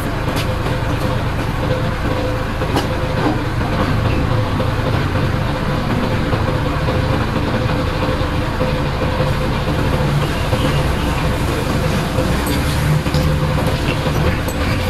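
Engine running steadily at idle: a low rumble with a constant mid-pitched hum, unchanging throughout.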